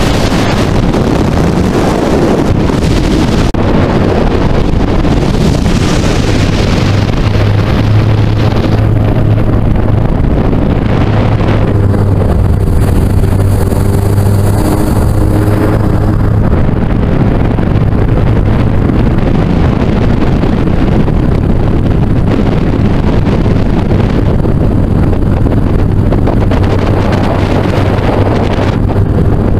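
Yamaha Exciter jet boat running at speed, its engine drone steady under heavy wind buffeting on the microphone. Around the middle, a few seconds of hissing water spray.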